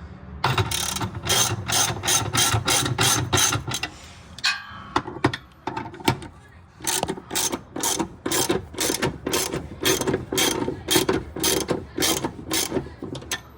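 Hand ratchet clicking in quick strokes, about four a second, as bolts on the transmission mount are tightened. The clicking pauses for a few seconds about a third of the way in, then resumes.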